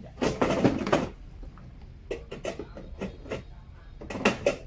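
A concrete block being shifted by hand against wood and metal: a scrape lasting under a second, then a run of small knocks and clicks, with two louder knocks near the end.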